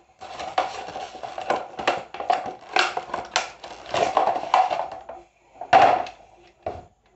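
Plastic and paper packaging crinkling and rustling in irregular bursts as a power strip is pulled out of it by hand, with one louder rustle about six seconds in.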